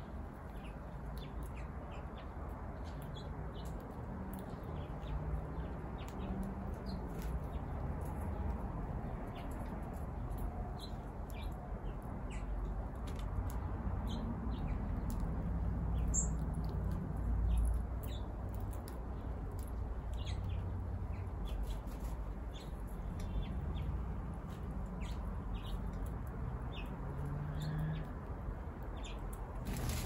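Backyard birds calling: many short, scattered high chirps and a few low, wavering calls, over a steady low rumble.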